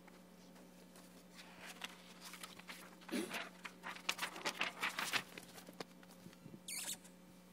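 A notebook and its paper pages being handled close to a table microphone: a run of rustles and soft clicks, busiest in the middle, as it is pulled out and opened.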